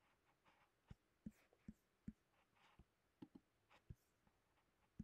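Near silence, with faint, irregular clicks and soft rustles of a computer mouse being clicked and slid.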